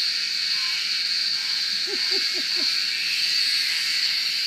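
Cicada chorus: a steady, shrill drone with no break. A brief faint muffled voice sounds about two seconds in.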